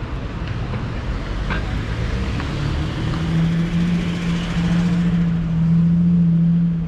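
Street traffic noise with a motor vehicle's engine close by: a steady low hum comes in about two and a half seconds in and holds over the general rumble.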